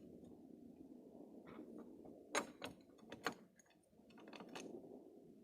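A few sharp metallic clicks and knocks as a light-bar mounting bracket and its hardware are handled and fitted onto a roof gutter. The two loudest come about two and a half and three and a quarter seconds in, over faint steady background noise.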